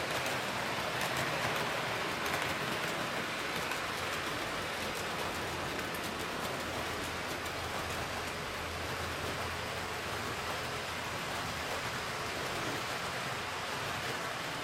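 HO-gauge model train rolling along its track: a steady rushing rumble of wheels on rail with fine clicking, a little louder in the first few seconds as the cars pass close and then evening out as the train runs away.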